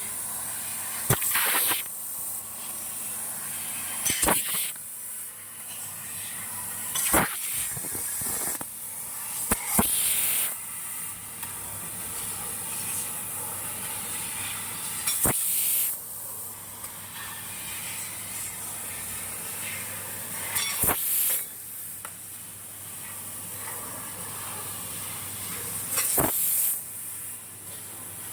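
Nitrogen assist gas hissing steadily from a CNC laser cutting head as it cuts 2.5 mm aluminium sheet. Every few seconds, about seven times, there is a sharp click followed by a brief louder surge of hiss. A faint low machine hum runs underneath.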